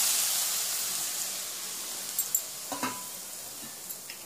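Hot mustard-oil tempering (tadka) sizzling on grated radish, carrot and spices in a kadhai, the hiss fading away over a few seconds. A few light clicks come about halfway through.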